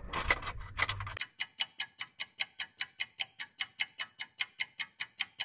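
A few light metal clicks and scrapes, then from about a second in a rapid, very even ticking, about five ticks a second, that does not let up.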